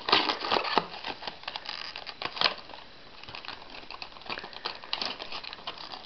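Clear plastic blister packaging crinkling and crackling as it is handled, in irregular crackles that are thickest in the first two and a half seconds, ease off around the middle, then pick up again.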